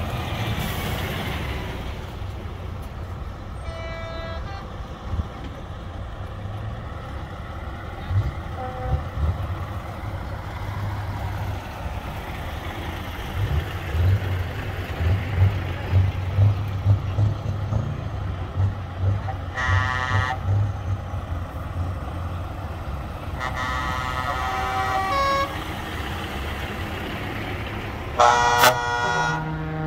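A convoy of heavy trucks driving past at low speed, diesel engines running, with several air-horn blasts: a short toot a few seconds in, more around the middle, and the loudest, a chord of several tones, near the end.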